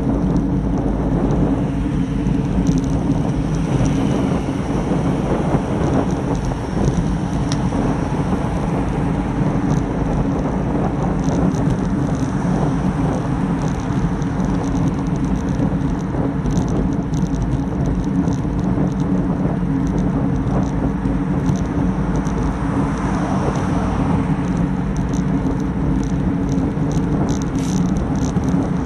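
Steady rush of wind and road noise picked up by a road bike's handlebar-mounted Garmin Virb XE action camera, riding at about 20 mph, with cars passing in the next lane and small ticking rattles throughout.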